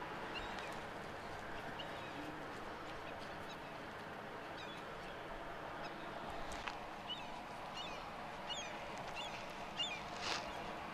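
Birds calling: many short, high chirps repeating, more often in the second half, over a steady background hiss.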